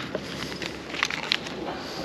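Small parts and clear plastic parts bags being handled on a workbench: a light rustle with a few sharp little clicks about a second in.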